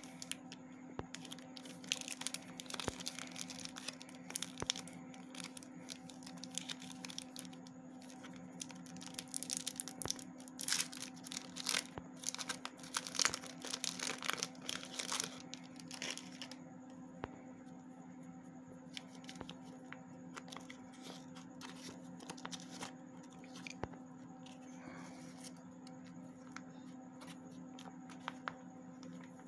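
A KitKat bar's red wrapper being torn open and its silver foil inner wrap crinkled and peeled back, with dense crackling and tearing through the first half. It thins to occasional crackles as the foil is handled, over a low steady hum.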